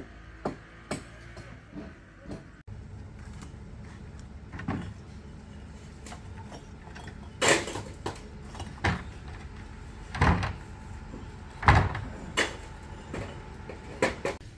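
A series of irregular knocks and thumps, light at first and louder in the second half, spaced roughly a second or so apart.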